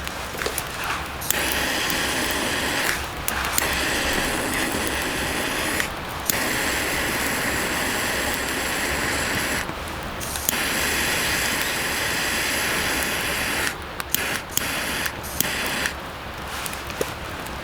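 Food sizzling in an iron wok, a steady hiss that drops away briefly four times.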